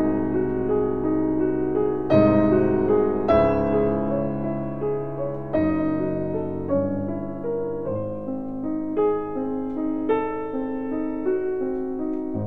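Background music: slow, gentle piano, chords struck about every second or two with notes ringing on.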